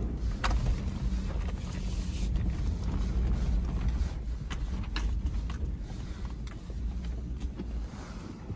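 Inside the cab of a Toyota Land Cruiser 100 Series driving over a rough dirt and snow trail: a steady low engine and road drone, with several short knocks and rattles from bumps.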